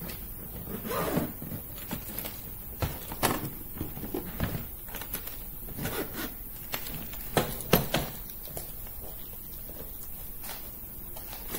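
Handling sounds of a hard-shell spinner suitcase: irregular knocks and clicks with a few short scraping or rustling passages, the loudest near the middle and a little past it.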